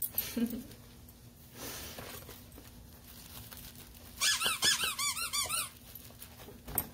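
A puppy chomping a red squeaky dog toy, setting off a quick run of sharp squeaks for about a second and a half.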